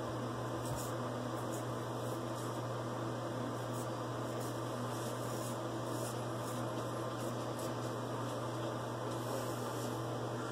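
Steady low hum and hiss of room noise, with faint, short, scratchy strokes of a vintage straight razor scraping through lathered stubble on the neck every second or so.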